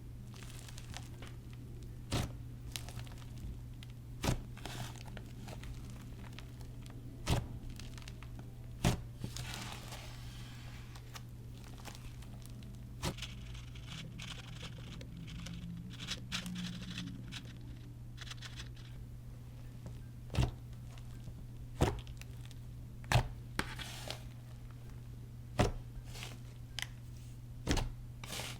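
Clay slime mixed with fruit-slice add-ins being worked and squished by hand, giving sharp pops and clicks every second or two with some softer crinkly squelching, over a steady low hum.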